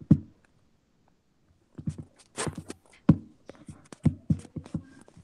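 A rapid, irregular run of knocks and bumps, the handling noise of a phone or tablet being grabbed and moved about close to its own microphone; one knock at the start, then a quiet second, then a dense clatter.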